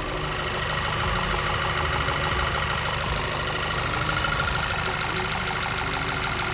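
Volkswagen Eos 2.0 TSI turbocharged four-cylinder engine running steadily and evenly, with no revving. The misfire is cured after replacing the PCV valve and the timing cover gasket.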